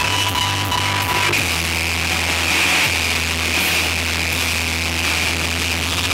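Live rock band playing loud: a held low bass note under a dense wall of distorted electric guitar noise.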